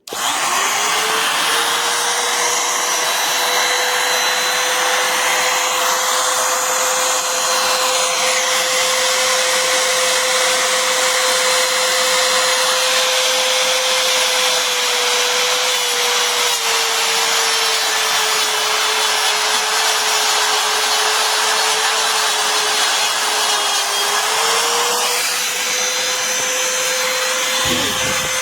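An 800 W electric wood router spinning up to full speed with a steady high whine and hiss. Its pitch sags a little for several seconds past the middle, then climbs back.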